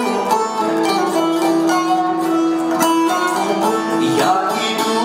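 Live music: fast plucked string accompaniment with a long held note from just after the start to about four seconds in, and a male singer performing over it.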